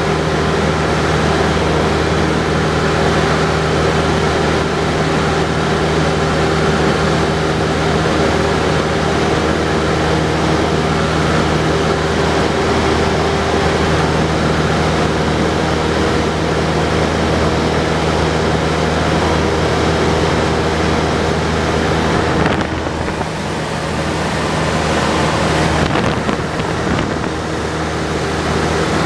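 Cessna Skyhawk's engine and propeller in flight, heard from inside the cabin as a loud, steady drone that dips slightly and turns duller for a few seconds near the end.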